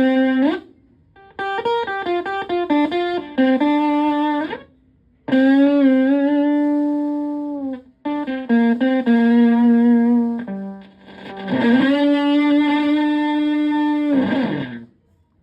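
Stratocaster electric guitar through a Zonk Machine fuzz pedal replica and a Twin Reverb–style amp, playing fuzzed lead phrases. Quick runs of notes alternate with long sustained notes that bend in pitch and waver with vibrato, in several phrases with short gaps between them. The playing stops just before the end.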